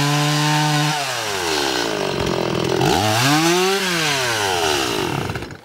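Piltz hot-rod-kit Stihl MS180 two-stroke chainsaw with an 18-inch bar, cutting through a log at full throttle. Its engine note falls about a second in, rises and falls again about three seconds in, and drops away near the end.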